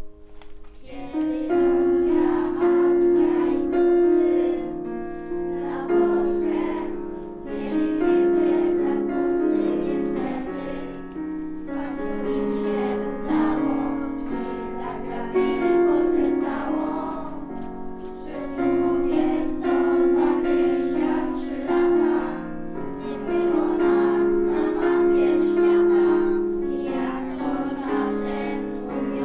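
A children's choir singing a song in unison, accompanied by an electronic keyboard played in chords.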